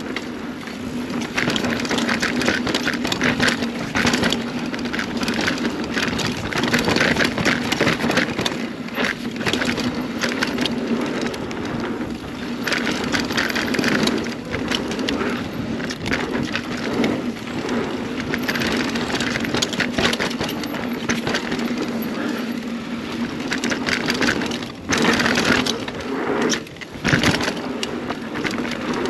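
Full-suspension mountain bike (2021 Scott Spark 970) riding down a dirt trail: a continuous rush of tyre and trail noise with a steady stream of rattles and knocks as the bike goes over bumps and roots.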